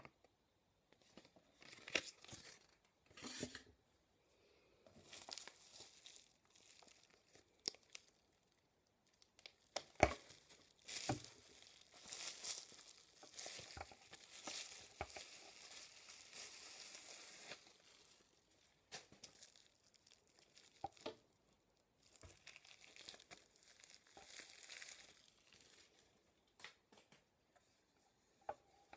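Crinkling and tearing of a clear plastic wrapper as it is pulled off a flat iron hair straightener. It comes in bursts, busiest in the middle stretch, with paper rustling early on and a sharp knock of handling about ten seconds in.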